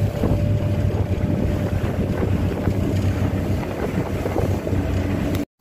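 Motorboat underway: the engine runs with a steady low drone under wind buffeting the microphone. The sound cuts off abruptly near the end.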